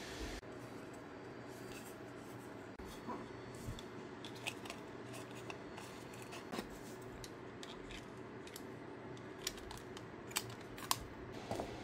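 Scattered light clicks and taps of 3D-printed plastic parts and a small speaker driver being handled and fitted together by hand, over a steady low hiss.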